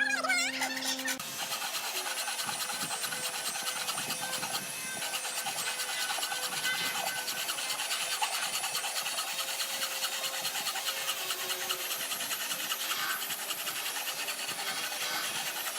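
A tool working hardwood, making a continuous scraping, abrading noise with fine rapid ticks at a steady level. It starts about a second in, when a steadier pitched sound cuts off.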